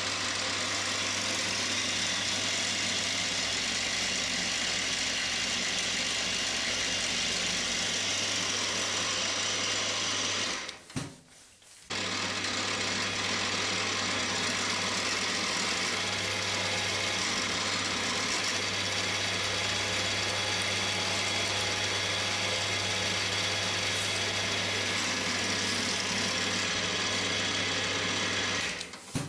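Cormak ZX 7045 mill-drill running at speed with a steady motor hum and whine while it drills a metal block: first a centre drill, then a 5.5 mm drill at 1600 RPM. The sound drops away briefly about eleven seconds in, then resumes.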